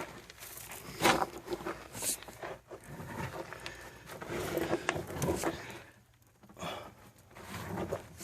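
Irregular scuffs and knocks of a person moving through a cramped dirt tunnel dug under a concrete slab foundation.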